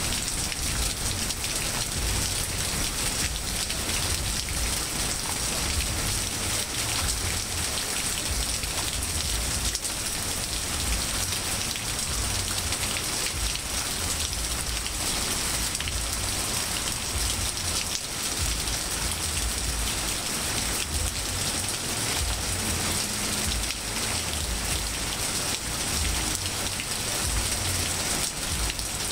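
Steady rain falling on trees, grass and pavement: a dense, even hiss, with a low rumble underneath.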